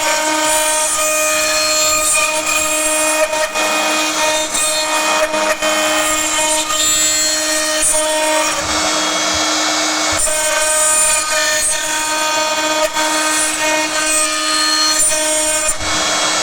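CNC router spindle at 19,000 rpm driving a 5 mm two-flute carbide endmill through mild steel: a steady spindle tone under a harsh, high-pitched cutting screech. The cutting noise eases off briefly about halfway through and again near the end as the tool moves between cuts on the adaptive toolpath.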